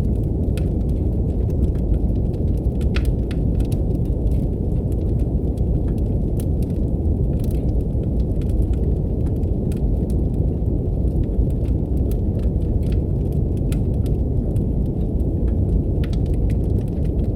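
Steady deep brown noise with a wood fire crackling over it in irregular sharp pops and snaps.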